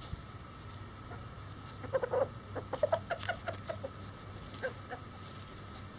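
Bantam chickens clucking: a quick run of short clucks about two seconds in, then a couple more near the end.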